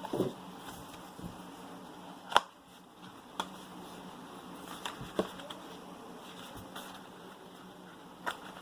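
A few separate sharp clicks and taps, as of hands handling a phone box and its contents, the sharpest about two and a half seconds in, over a steady low hum.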